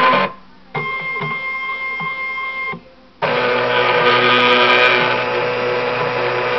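CNC milling machine's stepper motors whining with steady tones as the axes move, stopping twice. About three seconds in a louder, steady machine sound with several tones starts.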